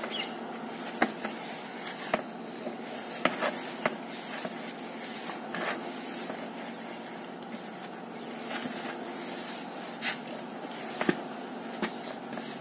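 Hands rubbing and scraping damp powdered dish-bar soap mix around a plastic tub, with irregular short scrapes and taps against the tub, over a steady background hum.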